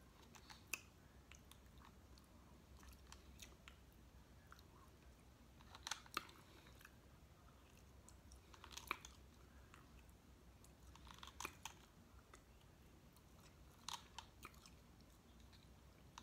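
Faint eating sounds from snow crab legs: soft chewing, with a handful of short, sharp clicks and cracks of shell spread through.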